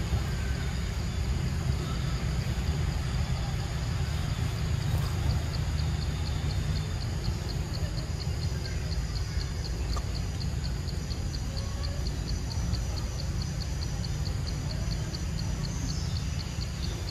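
Outdoor ambience: a steady low rumble, with a faint high ticking that repeats at an even pace, about four times a second, from about five seconds in until near the end.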